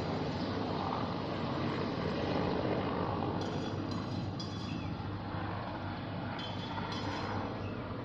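Helicopter flying over, a steady drone that swells about two seconds in and then slowly fades.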